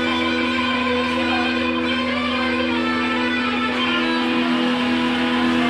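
Live band music led by guitar, holding steady sustained chords.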